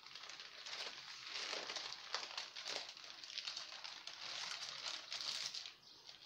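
Baking paper crinkling and rustling in irregular crackles as a rolled sponge cake sheet is unrolled and smoothed flat by hand.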